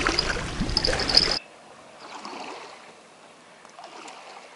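Rushing, trickling water noise that cuts off abruptly about a second and a half in, leaving only faint background noise.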